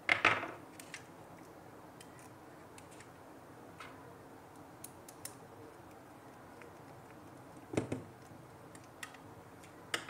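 Small clicks and knocks from handling a screwdriver and a plastic screw-terminal connector while wires are fastened into it: a sharp clatter at the start, a few faint ticks, and a quick double click near the end.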